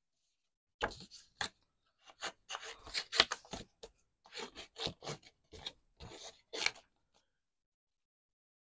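Small scissors snipping around the edge of stamped card stock: an irregular run of short cuts mixed with the rustle of the card being turned, starting about a second in and stopping about seven seconds in.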